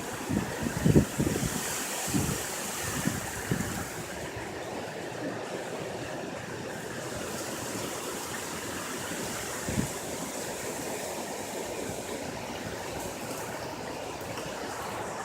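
Strong hurricane wind blowing steadily, with gusts buffeting the microphone in the first few seconds and once again about ten seconds in.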